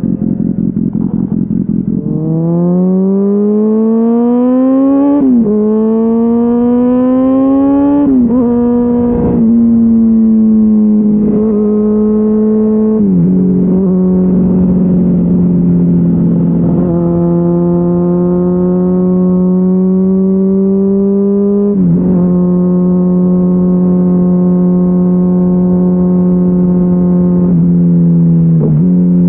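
Honda CBR600RR's inline-four engine through a GPR Deeptone exhaust with the dB-killer removed, under way. It revs up hard through several quick upshifts in the first ten seconds, then holds a steady cruise, its pitch stepping down a few more times at gear changes.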